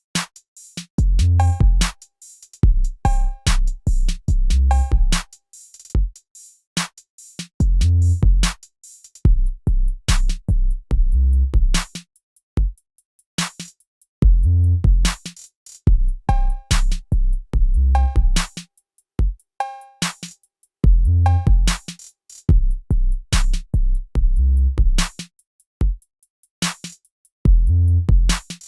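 Hip-hop music: a drum-machine beat with heavy bass kicks and sharp snare hits, and a short repeated tonal phrase over it.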